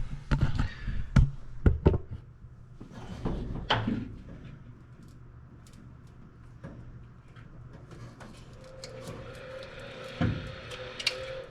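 Hands working a truck's plastic bulkhead wiring connector and its terminals: a quick run of knocks and clicks in the first few seconds, then scattered light ticks. A faint steady hum comes in about two-thirds of the way through, with one more thump near the end.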